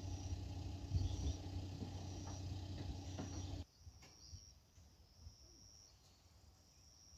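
Insects chirping outdoors: short high-pitched trills repeating about once a second. Under them a steady low rumble runs for the first half and cuts off abruptly about three and a half seconds in.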